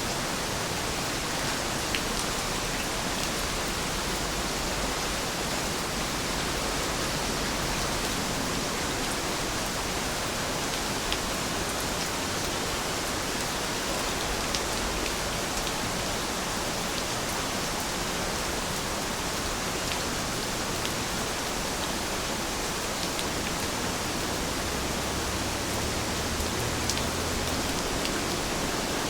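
Steady rainfall, an even hiss with faint scattered ticks of individual drops.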